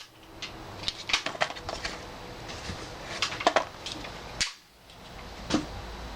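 Small metallic clicks and clacks of a Glock 42 .380 pistol being handled and loaded: a fresh magazine going in and the action being worked, with one sharper click about four and a half seconds in.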